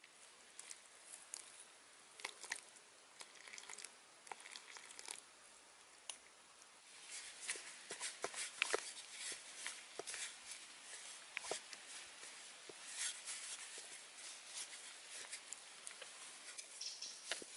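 Water poured onto flour on a metal plate and stirred with a stick, giving sparse faint clicks, then a hand kneading the wet flour into dough: soft squishing and crackling, denser and louder from about seven seconds in.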